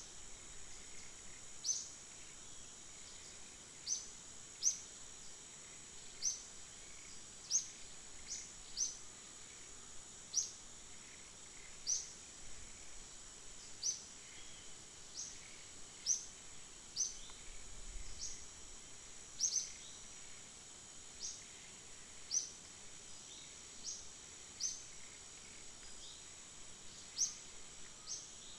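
A bird repeating a short, high chirp that slides downward, roughly once a second, over a steady high-pitched insect drone.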